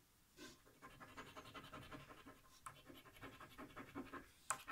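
A coin scratching the coating off a paper scratch-off lottery ticket in quick, rhythmic back-and-forth strokes, starting about half a second in.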